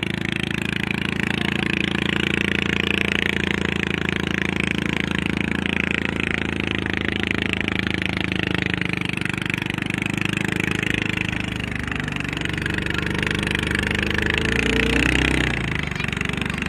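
Racing boat engines running hard at speed, with a steady rush of water and wind. Near the end one boat passes close, its engine pitch bending as it goes by.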